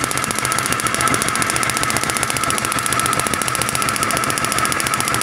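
Motorcycle engine being cranked with its spark plug out and grounded, the plug snapping with a fast, even ticking of sparks over a steady whine: a spark test showing a strong spark.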